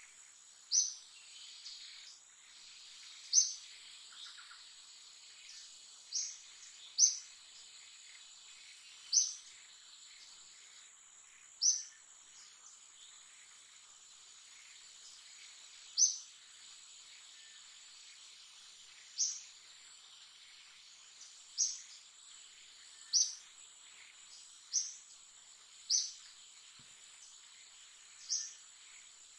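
Forest ambience: a bird gives a short, high chirp every one to four seconds over a steady, high-pitched insect drone.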